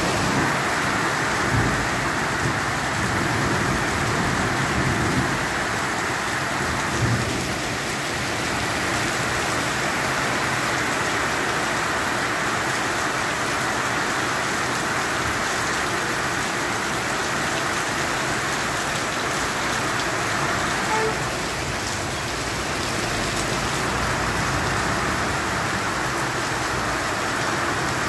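Heavy downpour: a steady, even hiss of rain pounding on the street and parked cars.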